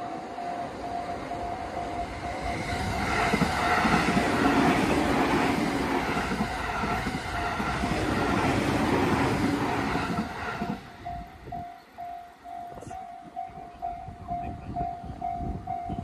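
A Japanese level-crossing warning bell rings in a fast, steady pulse while a JR Tokaido Line electric commuter train passes over the crossing. The train's wheels on the rails rumble and clatter loudly for about seven seconds, then fade after about ten seconds, and the crossing bell rings on alone.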